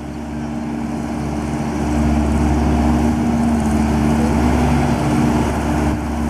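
Garbage truck engine drawing nearer, growing louder over the first two seconds, then running steadily with a low hum.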